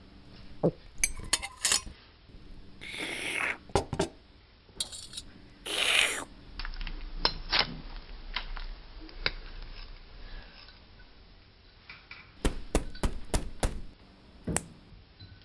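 Cutlery and dishes clinking at a dinner table: scattered sharp taps of metal on china, coming in small clusters, with a busier run of clinks near the end. Two short, louder noisy sounds come about three and six seconds in.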